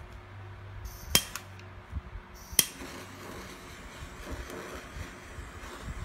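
Handheld butane blow torch's igniter clicking twice, about a second and a half apart, the second click louder, then a faint steady hiss of the lit flame.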